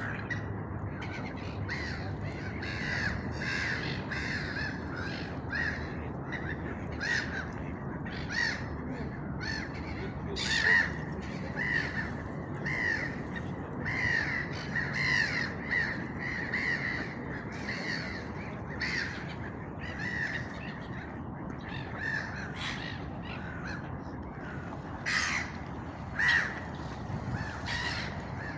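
Crows cawing over and over, many short calls following one another, with a few louder harsh caws about a third of the way in and near the end.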